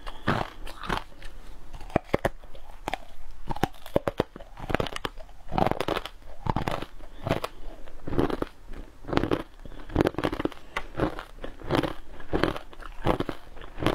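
Close-miked crunching and chewing of a mouthful of crumbly green frozen powdered food, in a steady rhythm of about two crunches a second. A few sharp clicks come about two seconds in.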